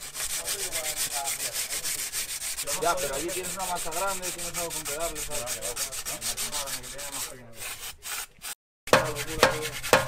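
Sandpaper rubbed by hand over the face of a cross-drilled cast-iron brake disc in quick back-and-forth strokes, cleaning the disc surface before new pads are fitted. After a brief break near the end, the strokes come slower and harder, about two a second.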